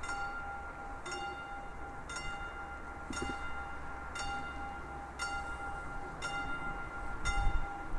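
Railway level-crossing warning bell ringing about once a second, each strike ringing on, sounding while the crossing is closed for an approaching train. A low rumble swells near the end.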